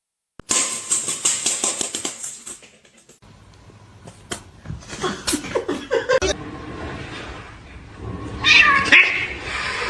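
Domestic cat meowing several times, in short segments with abrupt changes in background sound between them.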